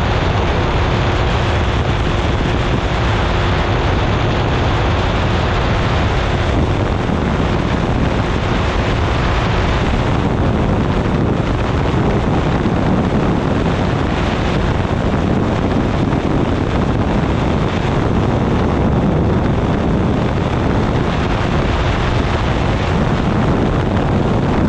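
Microlight trike's pusher engine and propeller running steadily in cruising flight, mixed with heavy wind rush on the wing-mounted microphone.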